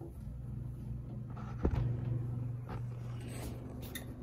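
Handling noise as the camera is picked up and moved: a sharp knock about one and a half seconds in and soft clicks and rubbing, over a steady low hum.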